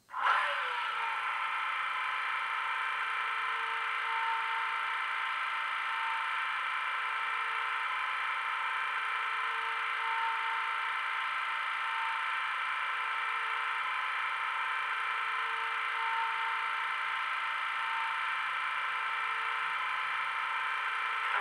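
DCC sound decoder in a Heljan Class 15 diesel model, playing the locomotive's diesel engine idling through the model's small speaker. The idle is a steady drone with slight swells and little deep bass.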